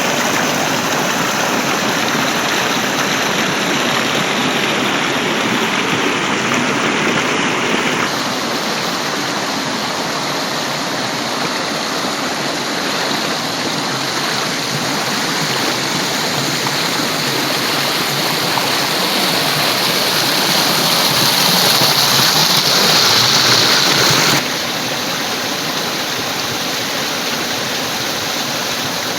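Running water rushing steadily, like a stream or waterfall. Its level and tone change abruptly twice, about eight seconds in and about five seconds before the end.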